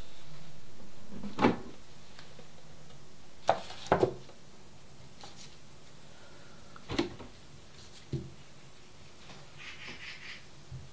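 Plastic food dehydrator being opened: a steady whir stops with a click about a second and a half in. Hard plastic knocks and clacks follow as the lid and tray are handled, and dried mugwort bundles rustle on the mesh tray near the end.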